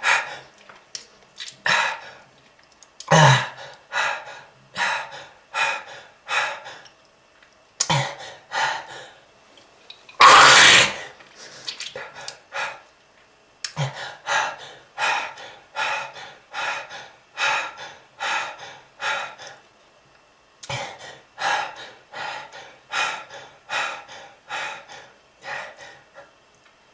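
A person coughing over and over: runs of short, harsh hacking coughs, about two a second, broken by brief pauses, with one longer, louder hack about ten seconds in. It is the hacking cough of a heavy smoker.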